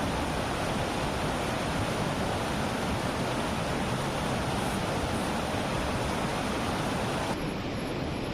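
Steady rushing noise of flowing river water. The hiss thins out abruptly about seven seconds in.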